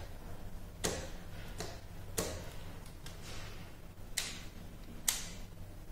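Sharp clicks from a combination light and dimmer switch being flicked through its positions, switching the headlamps and their relay, about five clicks at uneven spacing over a faint steady low hum.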